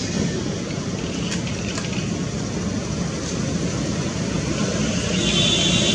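Steady outdoor background rumble and hiss. About five seconds in, a high, even buzz joins it.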